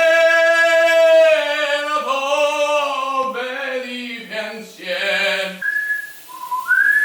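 A man singing loudly in a mock operatic style, holding long vowel notes. Near the end he breaks off into a few whistled notes.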